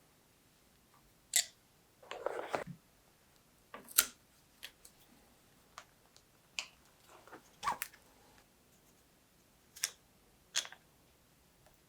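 Scattered clicks and taps of hand tools and bicycle parts being handled during a mountain bike assembly, with a brief, noisier rustle about two seconds in.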